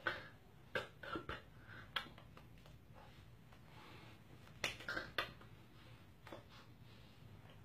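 Sharp clicks, like snaps or taps: one right at the start, a quick cluster of three or four around one to one and a half seconds in, one at about two seconds, another cluster near five seconds, and a fainter one a little after six seconds.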